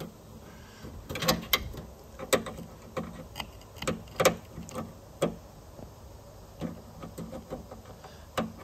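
Irregular clicks and taps of plastic wiring connectors and clips being handled and pushed together inside a Chevrolet Cruze hatchback's liftgate, a dozen or more sharp clicks spread unevenly.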